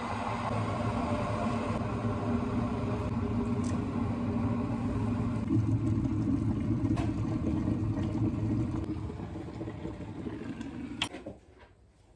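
A kitchen appliance running with a steady rumble, which stops with a sharp click about eleven seconds in.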